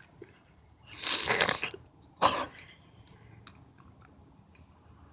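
A woman coughing: a rough burst lasting nearly a second about a second in, then a short, sharp cough just after two seconds, the louder of the two, followed by a few faint clicks.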